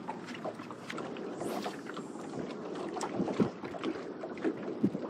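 Small waves lapping against the hull of a bass boat, with wind on the microphone and scattered light knocks and clicks.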